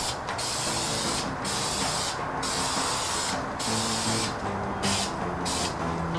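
Aerosol can of high-heat flat black spray paint hissing in about six passes, each roughly a second long with short breaks between.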